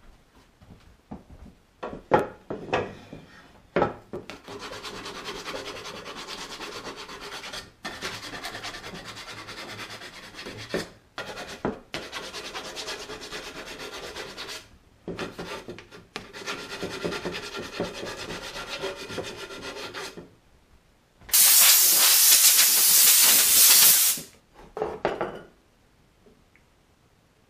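Hardwood chair parts knock together a few times, then sandpaper rubs on the wooden chair legs in long, steady stretches with short pauses. About 21 seconds in, a loud hiss lasts roughly three seconds.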